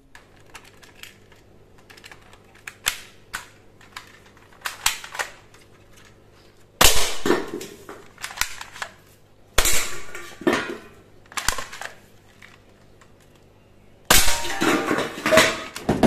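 Toy AK-47 blaster being handled and cocked, with light plastic clicks, then firing: single sharp shots about seven seconds in and three more around ten to eleven seconds, and a quicker run of shots and clatter near the end.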